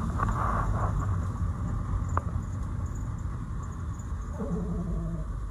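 Steady low rumble of a 1952 Morris Minor's side-valve four-cylinder engine and road noise, heard from inside the cabin while driving. A single sharp click comes about two seconds in.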